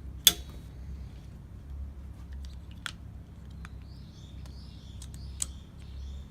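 Windshield wiper arm and blade clicking as they are handled. There is one sharp click just after the start, then a few lighter ticks and clicks spread through, over a low steady hum.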